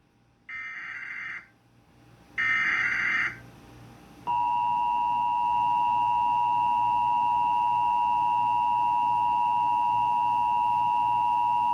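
Emergency Alert System tones on AT&T U-verse: two short bursts of SAME header data, the second louder. About four seconds in, the steady two-tone EAS attention signal (853 and 960 Hz together) starts and holds, opening a Required Monthly Test.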